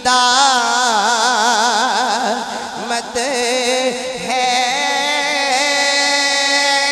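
A naat being sung in Urdu, one word drawn out over long notes. The notes waver quickly in pitch for the first few seconds, then settle into steadier held notes.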